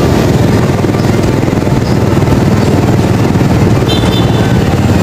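Steady engine and road rumble of a vehicle on the move, heard from on board, with a short high tone about four seconds in.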